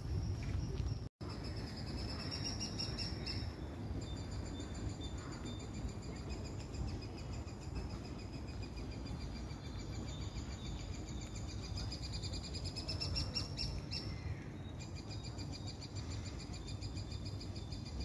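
Birds singing in the trees: a steady, high, rapid trilling that shifts pitch about four seconds in and again near the end, over a low steady rumble. The sound cuts out for an instant about a second in.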